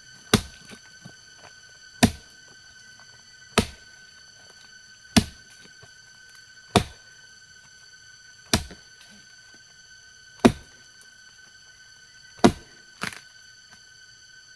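A digging tool, a hoe or mattock, strikes hard into the ground eight times at a slow, even pace, about one blow every two seconds. A steady high-pitched drone runs behind the blows.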